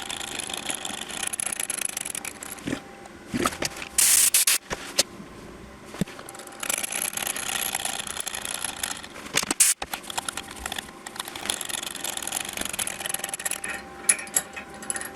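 A thread tap cutting into a hole in a small metal part: stretches of scraping a few seconds long, with sharp clicks between them and a faint steady hum underneath.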